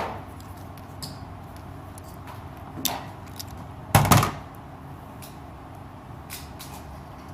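Small clicks and knocks of tools and cable parts being handled on a work surface, with a louder double knock about four seconds in.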